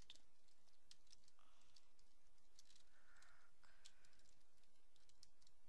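Faint, irregular computer keyboard keystrokes and clicks over a low steady hiss.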